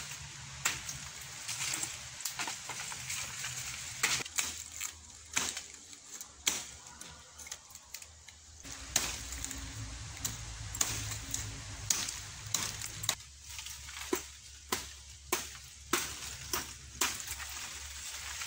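Machete chopping into rattan stems: a string of sharp, uneven strokes, quickening into about two blows a second in the last third, over rustling of dry leaves and stems.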